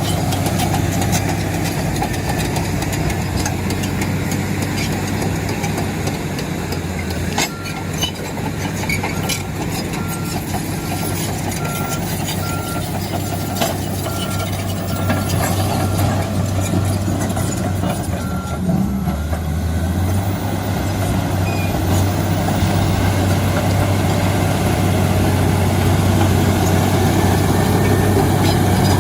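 Heavy construction machine's diesel engine running steadily under work. A reversing alarm beeps evenly, just under twice a second, for about ten seconds in the middle, and there are a few metallic knocks.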